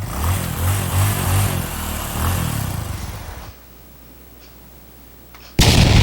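Recorded engine sound effect: an engine starting and running with a rhythmic low chug, cutting off after about three and a half seconds. Near the end a sudden, much louder blast begins.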